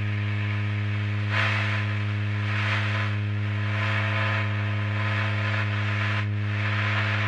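A steady low electrical hum with evenly spaced overtones, under a rushing hiss that swells and fades about every second or so.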